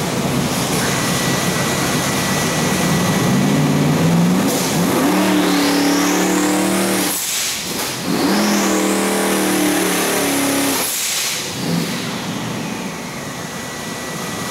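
Twin-turbo 427 cubic-inch LS V8 on an engine dyno, snapped twice from dead idle to wide-open throttle. Each time it climbs quickly in revs with a rising turbo whine, holds for about three seconds, then drops sharply back to idle. There is a little lean sneeze as it comes up, which the builder puts down to acceleration-enrichment fuel still to be tuned.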